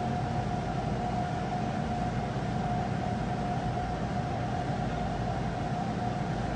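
Large cargo ship passing close by: a steady low rumble from its engines and machinery, with a steady whine held on one note above it.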